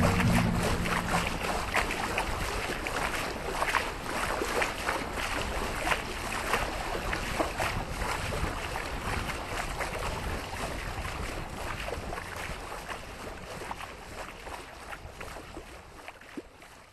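Water rushing and splashing along the hull of a sailing yacht under way, with many small irregular splashes. It fades out gradually over the last few seconds.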